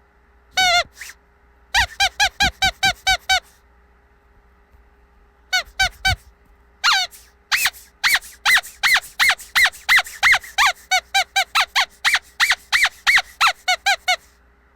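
Squeaky rubber dog toy being squeezed again and again, giving short pitched squeaks in quick runs of about five a second, with a pause of about two seconds early in the first half.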